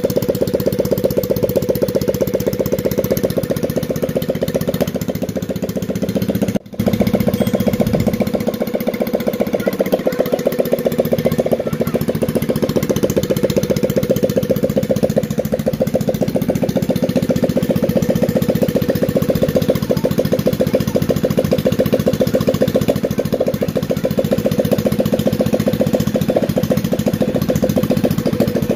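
Rebuilt 110cc single-cylinder four-stroke step-through motorcycle engine running steadily at idle, a rapid even exhaust beat, with a brief break about seven seconds in.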